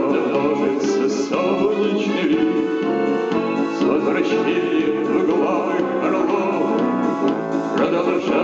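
Music: a song with steady instrumental backing and a vocal line, playing without a break.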